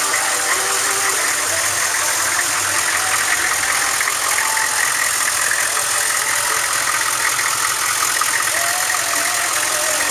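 Hummer H1's engine idling steadily.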